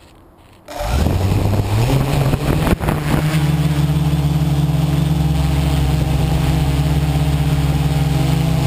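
Quadcopter motors and propellers spinning up about a second in, rising in pitch for a couple of seconds, with a single sharp click near three seconds in, then running at a steady high pitch as the craft lifts off.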